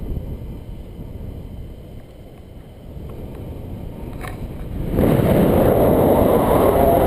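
Wind rushing over the camera microphone in paraglider flight: a low, steady rumble that becomes a much louder rush about five seconds in.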